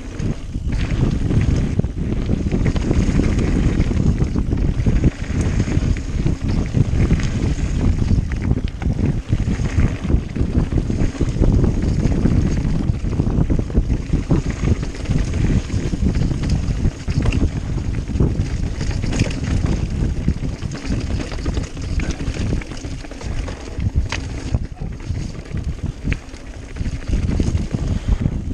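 Wind rushing over the microphone of a mountain bike moving fast down a dirt trail, with the tyres rolling and the bike clattering over rough ground in many short knocks.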